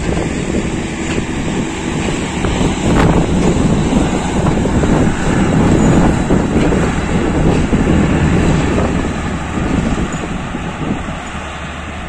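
Strong wind gusting over the microphone, over the rumble of a passenger train's coaches rolling slowly past on the track as it departs.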